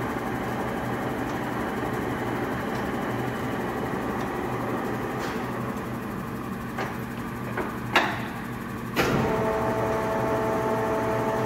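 Blanchard No. 18-36 vertical-spindle rotary surface grinder running under power, its magnetic chuck turning: a steady electric hum. About eight seconds in come a few clicks and a sharp clunk, and a second clunk about a second later, after which a higher whine joins the hum as the chuck drive is switched to another speed.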